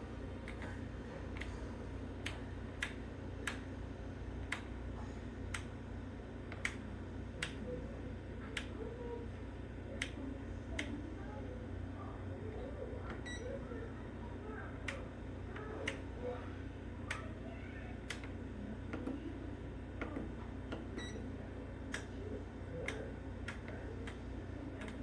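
Light, sharp clicks about once a second, unevenly spaced, over a steady low hum.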